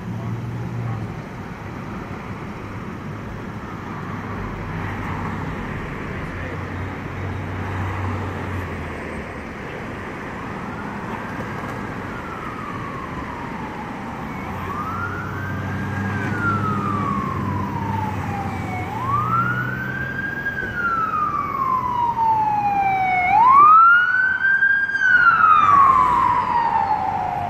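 Emergency vehicle siren wailing, each cycle rising quickly and sliding slowly back down about every four seconds. It comes in faintly about ten seconds in and is loud near the end. Under it runs a steady low rumble of vehicle engines.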